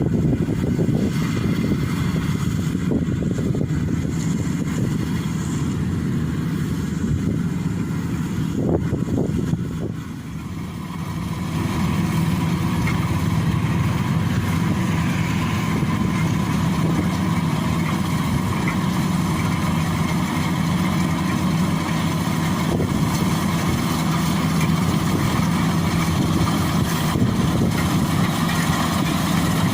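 Bimo combine harvester's engine running steadily while harvesting. The sound drops briefly about ten seconds in, then comes back louder and fuller.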